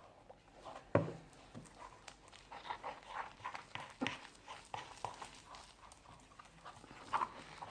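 Wet, sticky slime being squeezed and mixed by hand: an irregular run of small squelching and smacking sounds, with a sharper knock about a second in.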